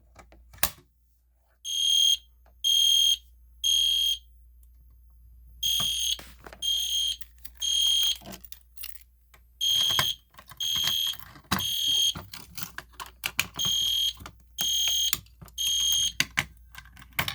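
EST Genesis horn strobe sounding code 3 (temporal-three): three short, high-pitched horn blasts, a pause, then three more, in four groups, after a manual fire alarm pull station is pulled. Light clicks are scattered between the blasts.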